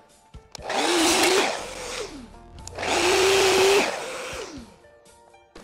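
Compound miter saw run twice, each time spinning up, cutting and winding down, as a 45-degree miter is trimmed a little at a time on a strip of walnut.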